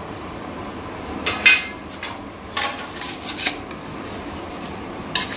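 Sharp metal clinks of a steel plate and spoon knocking against a large aluminium cooking pot as whole spices are tipped in, four or so in all, the loudest about a second and a half in.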